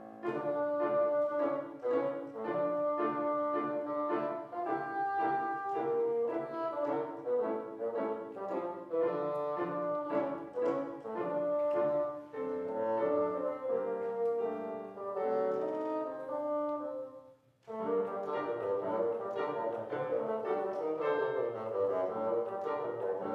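A wind instrument playing a melody of held notes over piano accompaniment, in classical recital style. The music stops for a moment about three-quarters of the way through, then picks up again.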